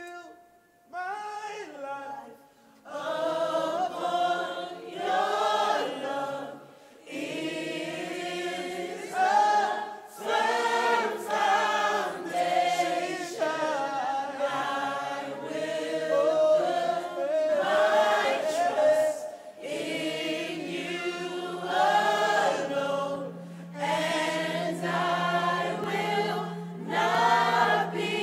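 Worship singing by a group of voices, the worship team and congregation together, in long sung phrases with little instrumental backing. A steady low note is held beneath the voices in the last third.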